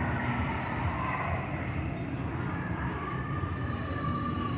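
Outdoor amusement-park background: a steady low rumble with faint, wavering distant tones above it.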